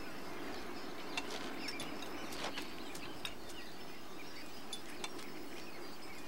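Outdoor ambience: a steady low hiss with scattered short, high chirps and small clicks spread through it.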